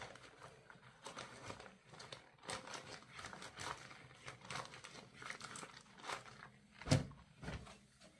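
Hands squeezing and rubbing soapy laundry: irregular wet strokes of uneven strength, the loudest about seven seconds in.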